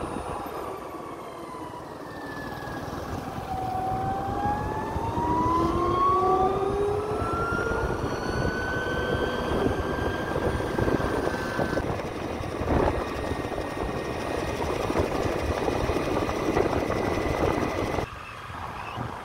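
A vehicle's engine running on the move. Its pitch dips about four seconds in, then climbs steadily as it speeds up and levels off. The sound drops away abruptly near the end.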